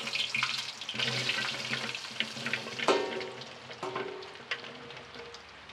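Diced carrots and potatoes dropping into hot oil in a clay pot and sizzling, the frying hiss strongest at first and fading toward the end. A metal spoon knocks and scrapes the pieces off the plate.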